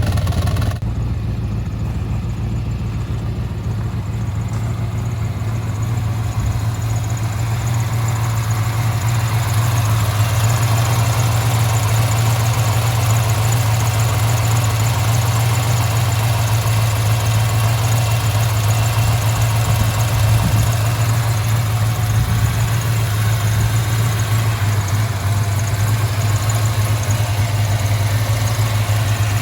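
Blueprint Engines LT1 355 small-block V8 with an LT4 hot cam idling steadily in a 1995 Impala SS, its exhaust leaks mostly repaired.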